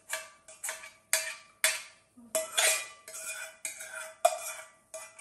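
Metal spoon scraping and knocking inside a small enamel saucepan as melted butter and oil are scooped out, about two strokes a second, each leaving the pot ringing at the same pitch.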